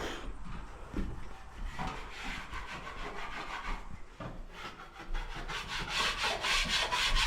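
Dried wall plaster being scraped off with a hand scraper in quick, repeated strokes, growing louder in the second half, to clear the bumps before the next coat.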